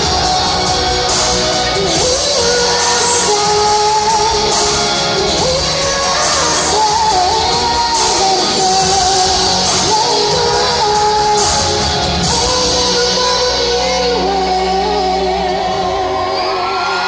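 A woman singing a pop-rock song live into a microphone over loud drums and bass, amplified through an arena sound system and heard from the crowd with the hall's echo. Near the end the drums and bass drop out, leaving the voice.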